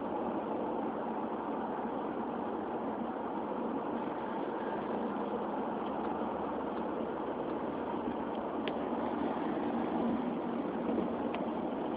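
Steady road and engine noise heard from inside a car's cabin at motorway cruising speed, with two faint ticks in the last few seconds.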